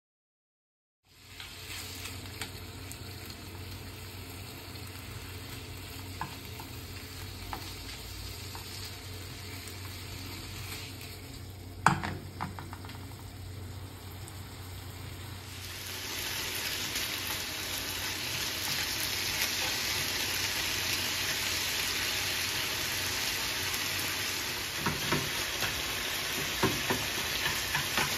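Food frying in a pan, a steady sizzle that starts about a second in and grows louder and hissier about halfway through. One sharp knock, the loudest sound, comes near the middle, and a few light clicks near the end.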